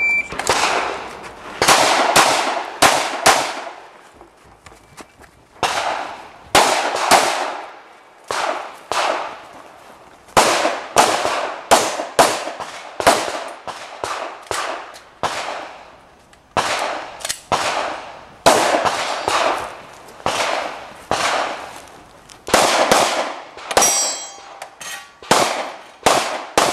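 Shot-timer beep, then a pistol fired through an IDPA stage: dozens of shots in quick pairs and small groups with pauses of a second or two between strings, each shot trailing off in echo.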